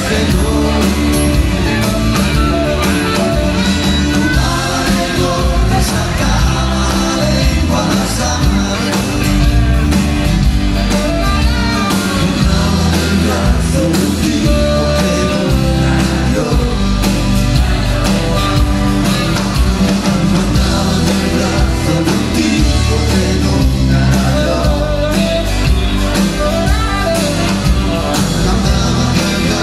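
Live rock band playing at full volume: electric and acoustic guitars, bass, drums and keyboards, heard as a loud, continuous wall of music from within the audience.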